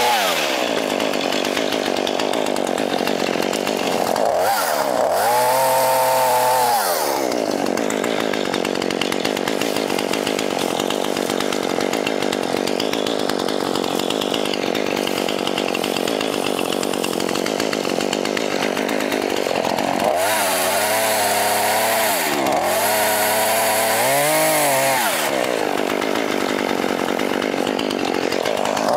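Two-stroke chainsaw running while cutting saplings and brush. Its engine is revved up and let fall back several times: once a few seconds in, and in a quick series near the end, with a steady stretch of running between.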